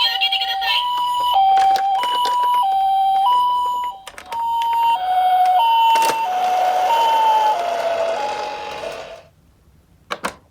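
Toy ambulance minicar's electronic two-tone siren going high-low, each tone lasting about two-thirds of a second. About halfway through, the rushing noise of its wheels rolling on the slope joins and the tones sag a little in pitch. The siren cuts off about nine seconds in, followed by a couple of sharp clicks.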